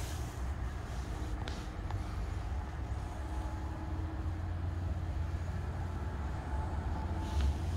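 Winter-storm wind rumbling low and steadily on the microphone, with a faint steady hum through the middle.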